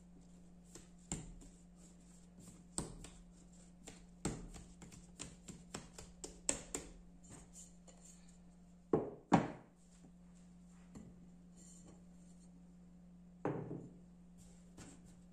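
Ball of dough being kneaded and shaped by hand on a bamboo cutting board: a quick run of light taps and slaps against the wood. Two louder thumps come about nine seconds in, and another shortly before the end.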